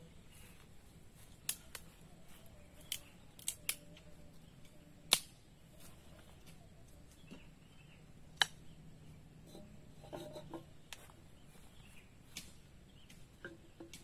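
A series of sharp clicks and snaps at irregular intervals, about eight in all, the loudest about five seconds in and again a little after eight seconds.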